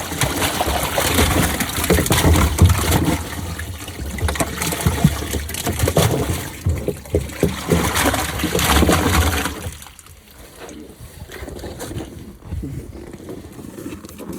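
Water rushing and splashing, which cuts off fairly suddenly about ten seconds in.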